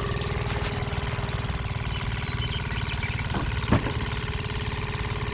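An engine running steadily at idle, with an even rapid pulse and a constant hum; two short knocks sound a little past halfway.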